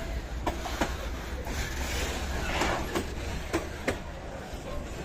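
Freight train's wagons rolling past close by: a steady low rumble with irregular clanks and clicks from the wheels and couplings.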